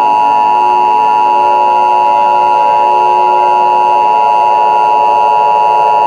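Emergency Alert System attention signal: two steady tones of about 853 and 960 Hz sounding together as one harsh, unbroken electronic drone. It is the alert tone that heralds a national Emergency Action Notification.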